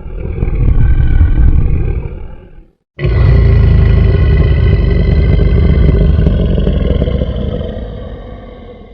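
Monster roar sound effect: a growling creature roar that swells and fades. After a brief silence a second, longer roar starts abruptly and slowly dies away.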